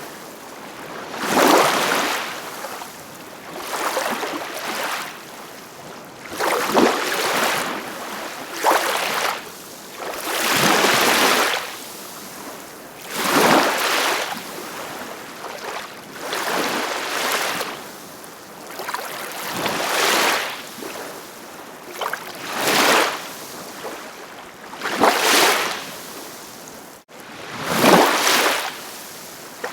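Small ocean waves breaking and washing on a shore, a surge of surf every two to three seconds, with a very brief break in the sound near the end.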